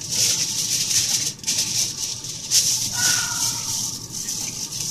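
Aluminum foil crinkling and rustling as it is handled and pressed onto a baking sheet: a dense, crackly rustle with brief pauses.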